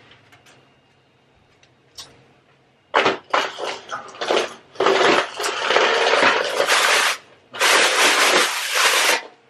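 A broken window blind being worked, giving a run of harsh, noisy bursts from about three seconds in; the last two last over a second each. The noise is the sign of the broken blind mechanism.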